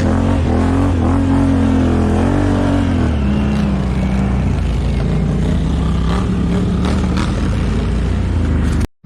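ATV engine running under throttle, its note dropping about three seconds in and then rising a little, before the sound cuts off abruptly near the end.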